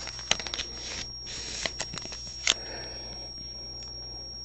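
Trading cards and thick plastic card holders being handled: several sharp plastic clicks and short rustling, sliding noises, then quieter handling for the last couple of seconds.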